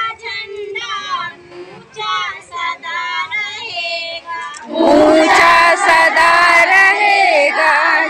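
A group of women's voices singing a patriotic song. About five seconds in, the whole crowd breaks into loud shouting together, much louder than the singing.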